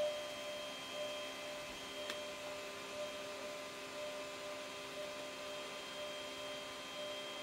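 Flying Bear P902 3D printer humming steadily, with several thin high tones held level and a few faint clicks.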